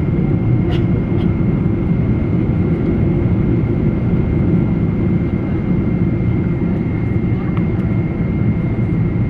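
Boeing 777 airliner heard from inside the cabin on landing: a steady deep rumble of engines and airflow with a thin, steady high whine above it and a few faint rattles.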